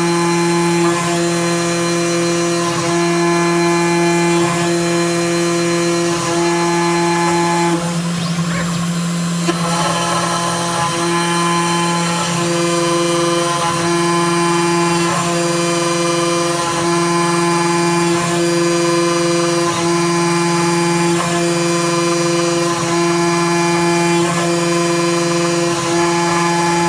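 CNC router spindle running with a steady whine while its small end mill cuts a white plastic sheet. The tone swells and dips about every one and a half seconds as the bit circles the collar outline, with a brief rougher patch about eight seconds in.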